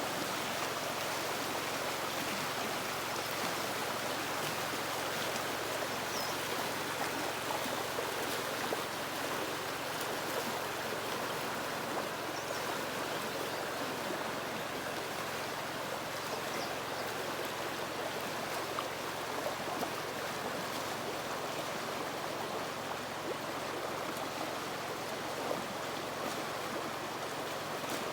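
A river running steadily over rocks, a continuous even rush of flowing water.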